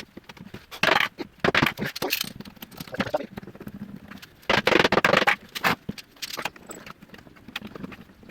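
Irregular short bursts of scraping and clatter from wooden parts and tools being handled.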